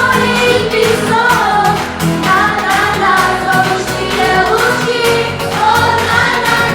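A song: a voice singing over a backing track with a steady beat.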